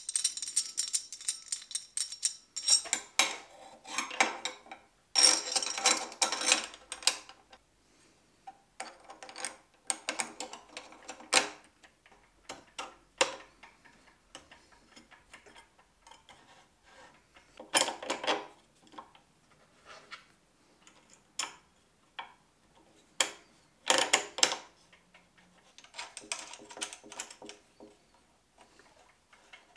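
Metal hardware clinking and rattling as a muffler clamp and small metal bracket are handled and fitted around a drill press's steel column. The sound comes in short bursts of clicks and ringing jingles with brief pauses between.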